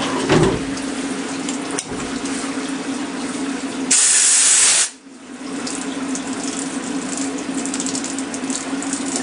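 Fadal CNC mill running an engraving pass with flood coolant spraying: a steady splashing hiss over a steady hum. A low thump comes just after the start. About four seconds in, a loud hiss lasts just under a second, and then the sound dips briefly before the spray and hum resume.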